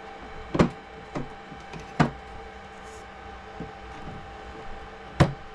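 Sharp clicks and knocks of hard plastic as a canopy hold-down is fitted back onto a Traxxas Spartan SR RC boat's hull. Three loud clicks come about half a second in, at two seconds and near the end, with fainter taps between them, over a faint steady hum.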